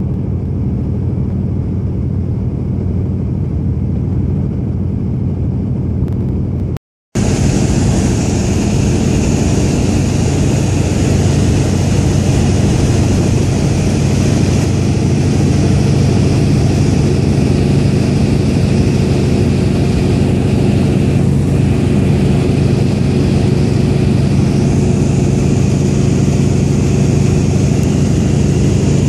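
Antonov An-2's nine-cylinder Shvetsov ASh-62 radial engine and propeller droning steadily in cruise flight, heard from inside the cabin. The sound drops out for a split second about seven seconds in, then carries on slightly brighter.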